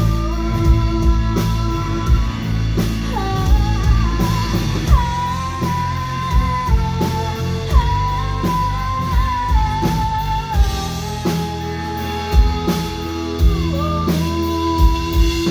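Live rock band playing: guitars and a drum kit keeping a steady beat, with a held melody line that slides between notes on top.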